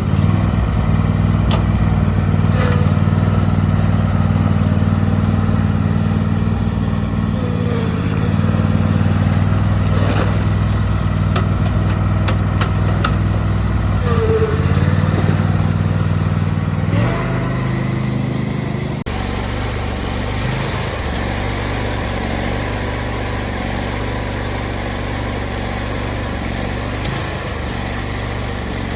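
Briggs & Stratton 724cc V-twin engine of a Husqvarna YTH22V46 riding lawn mower running steadily. About two-thirds of the way in the sound changes abruptly to a noisier, less distinct engine sound.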